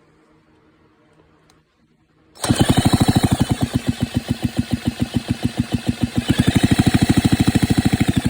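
Chainsaw engine being spun over without firing, a fast, even chuffing of compression strokes about ten a second that starts a couple of seconds in and runs several seconds. It does not catch because the ignition coil gives no spark.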